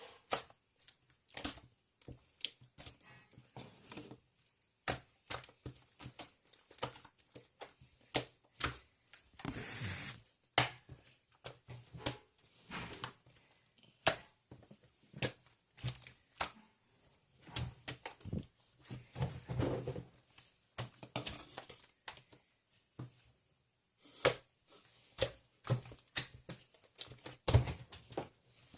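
Irregular small clicks, taps and knocks, with a short rustle about ten seconds in.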